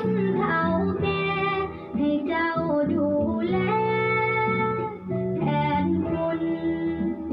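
A song: a voice singing held, sliding notes over plucked guitar accompaniment.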